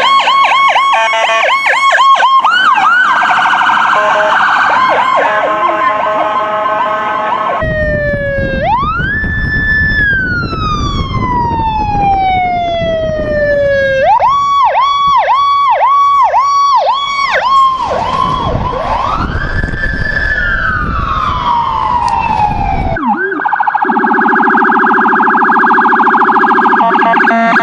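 Electronic emergency-vehicle sirens sounding the Powercall tone: twice a quick rise followed by a long, slow falling sweep, with fast repeated up-and-down yelps before and between. Near the end a steady buzzing tone takes over.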